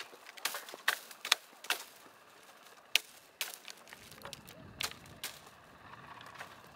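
Olive branches being worked during hand harvesting: irregular sharp clicks and snaps, several in quick succession and then more spread out, with a low rumble starting about four seconds in.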